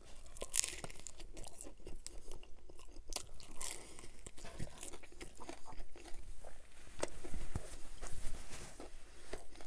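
Biting and chewing a crisp piece of Domino's pan-crust pizza: crunchy bites and wet chewing with a run of small crackles, louder around seven to eight seconds in.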